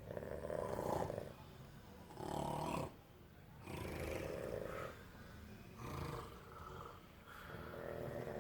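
A person snoring in their sleep, one rasping snore on each breath: five snores, spaced about one and a half to two seconds apart.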